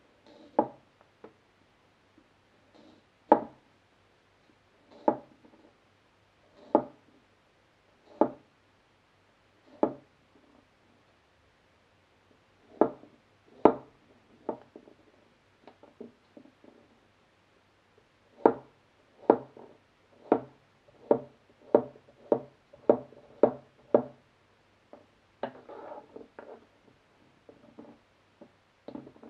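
Large chef's knife slicing through a peeled root vegetable, each cut ending in a sharp knock of the blade on a wooden cutting board. The cuts come about every second and a half at first, then quicken to about one a second. Near the end, slices are pushed and gathered across the board.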